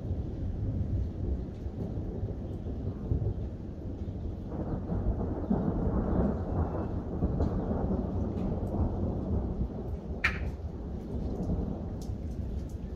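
Near-continuous thunder rumbling, the non-stop thunder typical of a hailstorm. It swells into a louder, fuller roll about four and a half seconds in and eases off after about nine seconds, over light rain.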